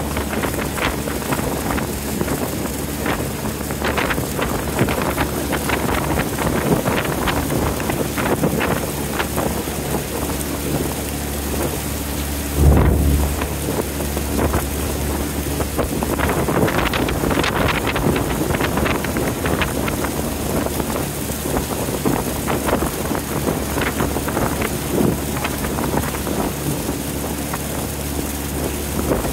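Small wooden motorboat under way: a steady engine drone under water rushing and splashing along the hull, with wind buffeting the microphone. A louder thump comes about halfway through.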